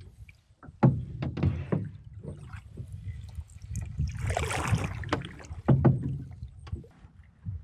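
Canoe paddling on calm water: paddle strokes pulling through the water with splashes and drips, over a low steady rumble. The strongest strokes come about a second in and near six seconds, with a brief hissing swish of water in between.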